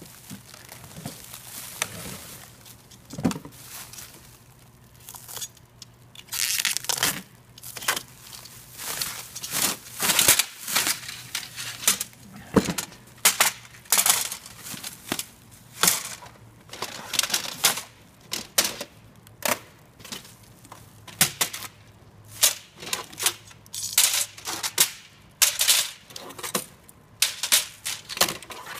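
Plastic stretch wrap crinkling and tearing in irregular bursts as it is cut and pulled off a wrapped rack server, with sharp metallic clacks of steel rack rails being handled and set down.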